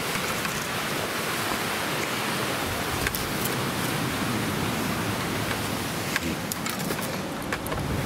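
Steady rush of a fast-flowing creek, with dry brush and twigs snapping and crackling as someone pushes through it; a cluster of sharp snaps comes near the end.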